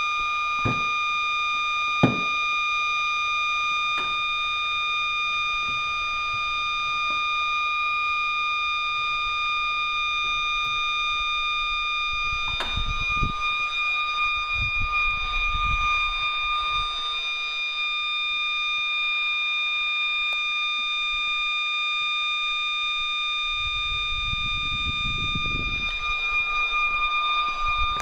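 Warning siren sounding a steady one-minute alert tone, held at one unchanging pitch with several tones together. A few sharp clicks and some low rumbling near the microphone partway through.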